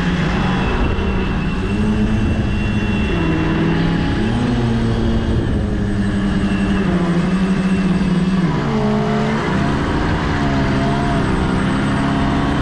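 Radio-controlled model boat engine running on the water, its pitch stepping up and down several times as the throttle is opened and eased off.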